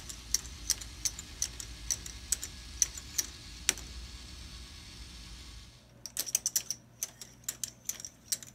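Balls rolling through a K'nex ball machine, making a quick irregular run of sharp plastic clicks and clacks on the tracks, with a low steady hum underneath that stops about six seconds in.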